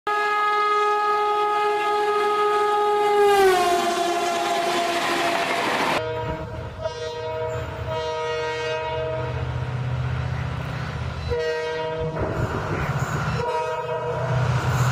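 An Indian Railways electric locomotive's multi-note horn held long, its pitch dropping about three seconds in as the locomotive passes, over rail noise. After a cut, an approaching EMD GT46PAC (WDP-4) diesel locomotive sounds its two-note horn three times, one long blast and two short ones, over a low steady diesel rumble.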